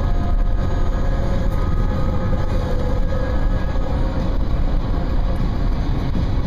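Steady road noise of a car driving at highway speed, heard from inside the cabin: a low rumble from the tyres and engine.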